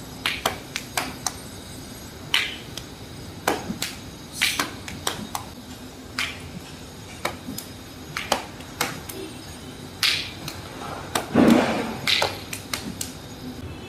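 Rattan arnis stick swung through a combination of strikes: irregular short swishes and taps, with feet shifting on a tiled floor. A longer, louder rush of noise comes near the end.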